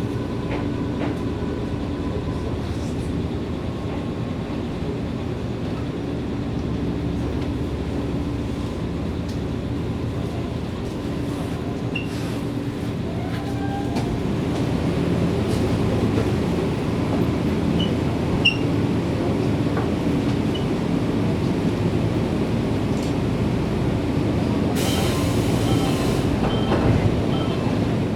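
Electric train at a station: steady running hum of its equipment with a few scattered clicks, growing a little louder about halfway through, and a brief hiss near the end.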